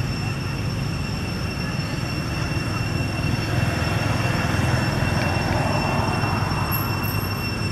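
Steady low rumble of a running engine, with two steady high-pitched whining tones above it.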